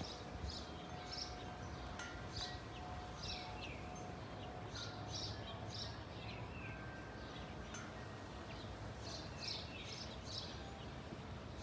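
Small birds chirping over and over, short high notes each followed by a quick falling note, over a low steady background hum.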